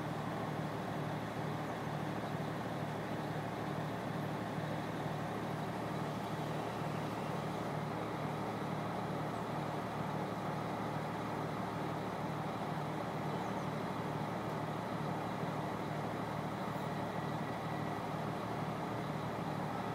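Crane engine running steadily under load with an even low throb as it hoists a large dome off the ground.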